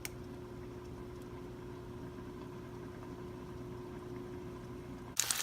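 A steady low hum with a faint constant tone. Near the end, food frying in a pan starts sizzling abruptly and loudly.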